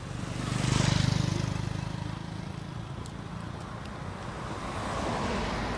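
A motor vehicle passes close by, its engine and road noise swelling to a peak about a second in and fading, with a second, quieter swell near the end.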